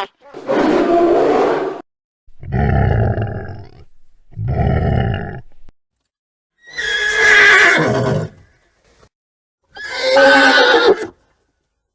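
Five separate horse calls, neighs and whinnies, each a second or two long with short silences between. The second and third are lower and deeper. The last two are higher, wavering calls that fall in pitch.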